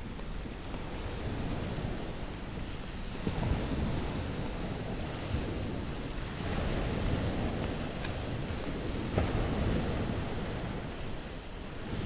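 Sea waves washing on the shore with wind, a steady rushing noise that swells and eases.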